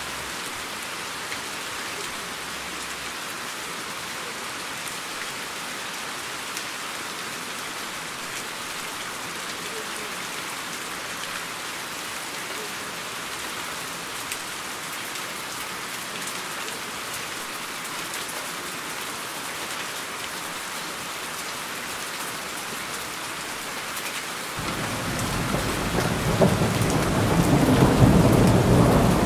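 Steady rain falling. About 25 seconds in, a rumble of thunder comes in and grows louder toward the end.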